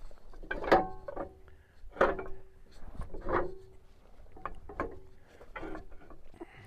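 Steel parts of a log splitter clanking as pins and the pullback arm are worked off: a series of sharp metal knocks, about one or two a second, several of them ringing briefly.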